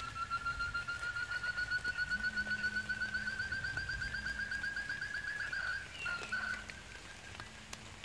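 A bird's long, rapid trill that rises slowly in pitch for about six seconds, then breaks off, followed by a short single note.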